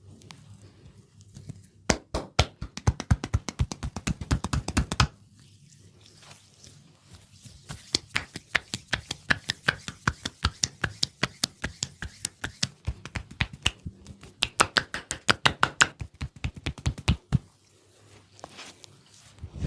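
Hands striking rapidly on a person's head in a percussive head massage, chopping and tapping at about eight strokes a second. It comes in two runs: a short one of about three seconds, then a longer one of about ten seconds.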